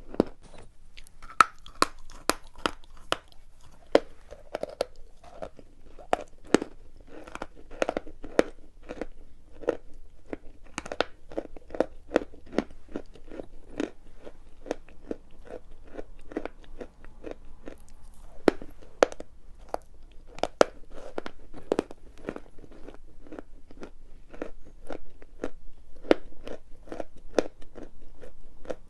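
Dry chalk being bitten and chewed, a steady run of sharp crunches several times a second.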